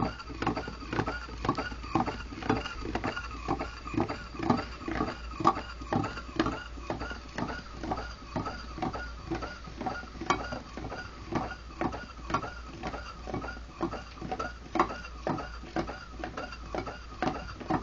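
Homemade Pringles-tube Stirling engine with a gravity-driven displacer running at about 100 rpm, its mechanism clicking rhythmically about twice a second. A faint tone rises and falls with each stroke.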